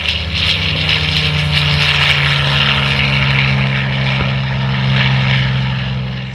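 Propeller airplane's engines droning steadily overhead, the pitch dropping slightly about two seconds in as it passes, then fading near the end.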